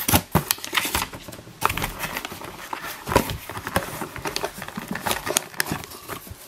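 Unboxing sounds from a cardboard box and plastic wrapping: irregular clicks, taps and crinkly rustles as a plastic-sleeved audio interface is lifted out of its box.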